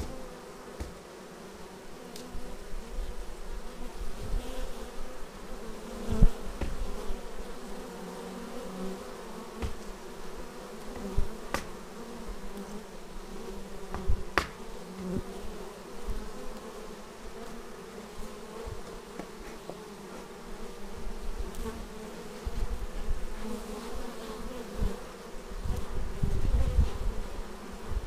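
Honeybees buzzing at the hive entrance: a dense, steady hum of many bees, with individual bees flying in close past the microphone. Irregular low rumbles and a few sharp clicks break through, the loudest about six seconds in.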